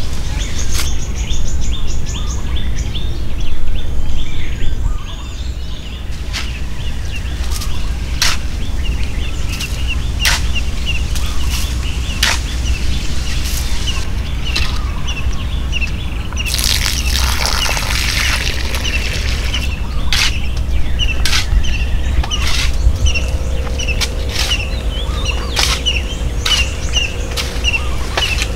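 A steel shovel scraping and striking soil and stones in scattered strokes, coming more often in the second half, while a bird chirps over and over, about once a second. Partway through there is a short hissing rush.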